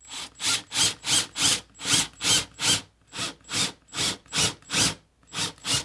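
Cordless drill boring an angled hole into a small wooden block, the bit cutting the wood in a rhythmic series of rough surges, about three a second.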